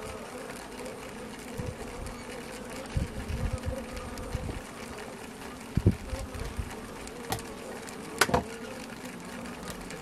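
Honey bees humming steadily in a hive fitted with mason jar syrup feeders, with irregular tapping and knocking that the bees themselves make: a cluster of taps about three seconds in and a few sharper clicks in the last third.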